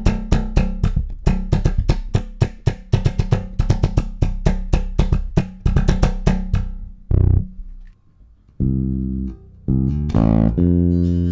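Ibanez five-string electric bass played with the fingers: a quick run of plucked notes over a ringing low note for about seven seconds, a brief pause, then slower, longer-held low notes. The new strings are still slack and buzz against the frets, which the player notices.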